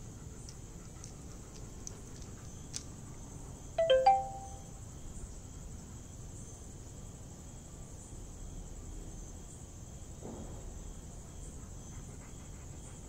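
Steady high-pitched insect chirring. About four seconds in it is broken by a brief ringing, chime-like double note that is the loudest sound present.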